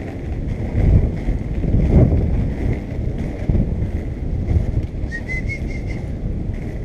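Wind buffeting the microphone over the rumble of skateboard wheels rolling on rough, cracked asphalt, swelling louder about one and two seconds in. A few faint high chirps come just past the middle.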